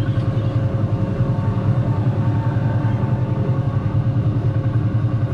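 Steady low rumble of a ride vehicle's motor running, with a faint steady hum above it.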